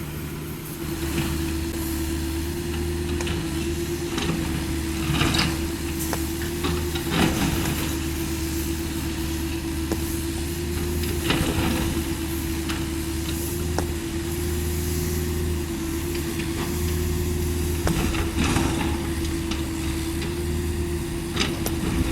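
Caterpillar 305.5E2 mini excavator's diesel engine running steadily with a constant whine over it, the engine picking up about a second in. Scattered knocks and clatter of rubble and broken wall being pushed and gathered.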